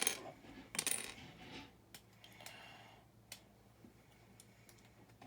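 Small plastic building bricks clicking and clattering as they are handled, with a few sharp clicks and a brief rustle among the pieces.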